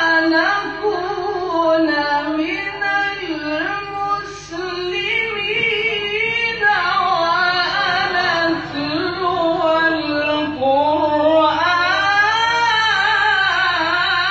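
A male qari reciting the Quran in the melodic, drawn-out tajweed style, his voice gliding up and down through long ornamented phrases, with a brief pause for breath about four seconds in.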